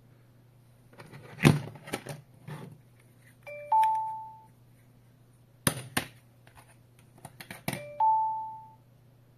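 Two rounds of handling clicks and knocks, each followed by the wireless home alarm panel's electronic door chime: a short two-note ding-dong that rings out and fades over about a second. The chimes come just before 4 s and at 8 s, the sign that the door entry sensor has been opened.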